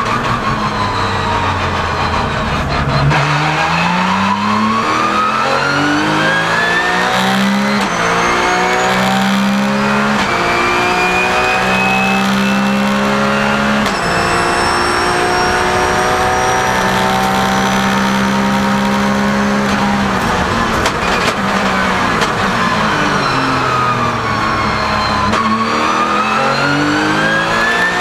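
Porsche 997 GT3 Cup's flat-six engine, heard from inside the cockpit while racing. Its pitch drops over the first few seconds, then climbs through several gear changes, holds steady for long stretches, drops again near the end and starts rising once more, with a high whine that climbs with speed.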